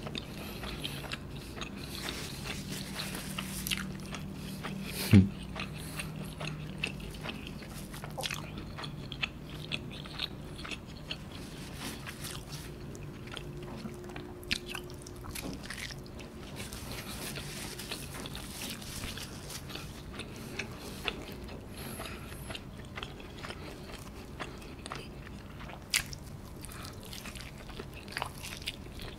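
Close-up chewing and biting of soft pizza bread and melted cheese, with many small wet mouth clicks. A single thump about five seconds in is the loudest sound.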